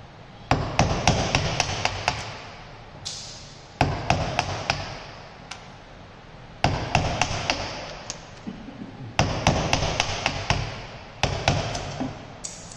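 Firmer chisel cutting into a wooden block held in a bench vise: bursts of sharp knocks, several a second, every two to three seconds, with short pauses between.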